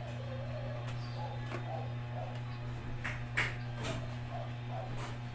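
Plastic tower fan parts being handled during assembly: a few scattered clicks and knocks, the loudest about three seconds in, over a steady low hum.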